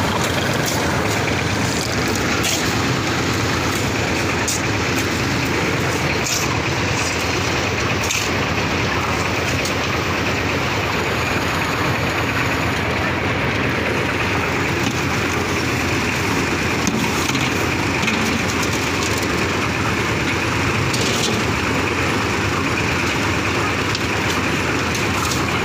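An engine running steadily and loudly, with scattered light clicks and knocks over it.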